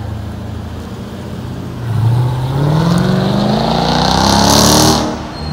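Jeep Grand Cherokee, which the spotter suspects is a Trackhawk, accelerating hard away. About two seconds in its engine note climbs steadily in pitch and stays loud for about three seconds, then falls away near the end.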